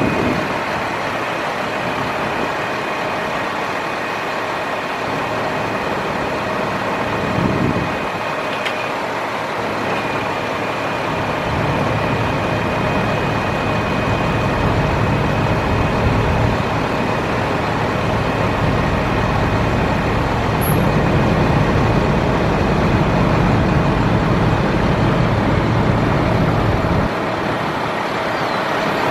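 Cummins ISC 8.3-litre inline-six diesel of a 2009 Freightliner M2 bucket truck running steadily, with a thin steady high whine over it. The low rumble grows louder in two stretches in the second half.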